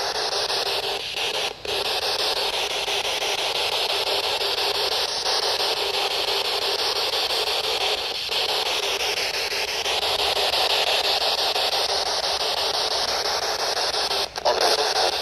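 Dual-channel spirit box sweeping through AM/FM radio stations, giving out a steady hiss of radio static. The noise drops out briefly about a second and a half in and again near the end.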